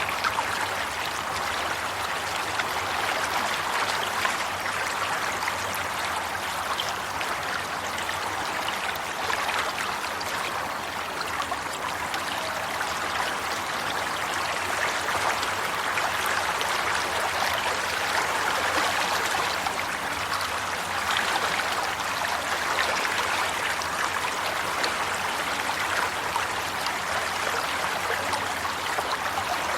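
Running water flowing steadily, like a babbling stream, an even rushing splash that swells and eases gently.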